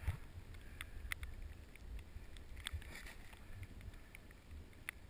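Snowboard gliding through deep powder snow: a low, steady rumble with scattered light clicks and taps, and a faint hiss of snow about three seconds in.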